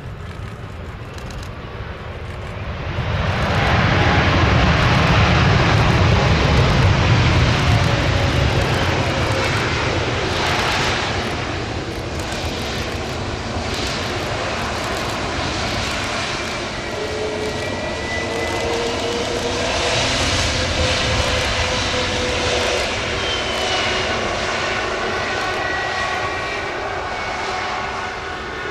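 Airbus A321neo jet engines running as the airliner taxis on the runway: a steady roar that swells sharply about three seconds in and eases off after a few seconds, with whining engine tones that drift slowly in pitch.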